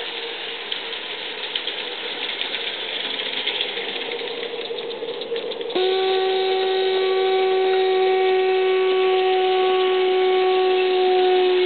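Aristo Craft live-steam Mikado model locomotive running with a steady steam hiss and light clicking. About six seconds in, its steam whistle starts suddenly and blows one long steady note, which dips slightly in pitch near the end.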